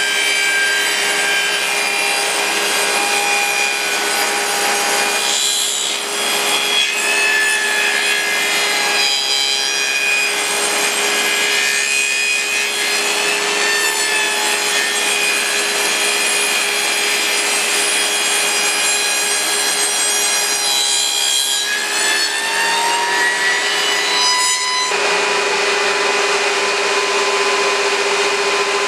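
Makita table saw ripping a wooden board along its fence, the motor's whine wavering and dipping as the blade takes the load. Near the end the pitch rises and settles into a steady note as the blade comes free of the wood.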